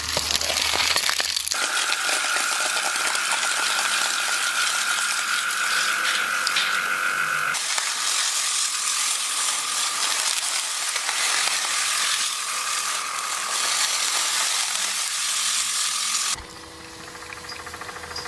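Rapid, dense mechanical clicking and rattling, like a ratchet, in spliced segments. It changes abruptly about a second and a half in and again about seven and a half seconds in, then gives way near the end to a quieter sound with a steady hum and a few sharp ticks.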